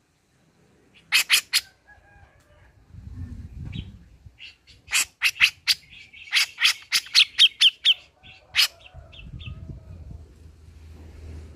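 Grey-cheeked bulbul (cucak jenggot) giving sharp, harsh chirps: a quick group of three about a second in, then a fast run of about a dozen from about five seconds in to near nine seconds.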